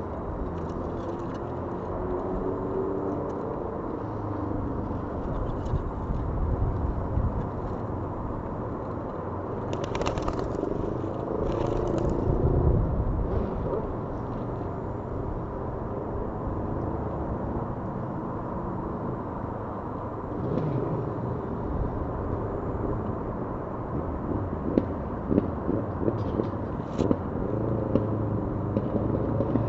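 Steady rumble of road traffic, with a vehicle engine's drone fading out in the first second and a few short light clicks and taps scattered through, most of them near the end.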